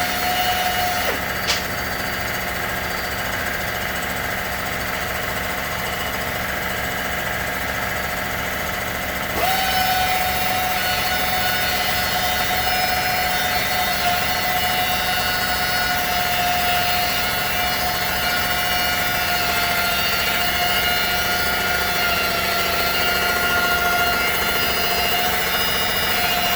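Machine tool running steadily through a light finish pass on a cylinder head, with a steady whine. There is a short click about a second and a half in, and about nine seconds in the sound steps up in level and its whine shifts.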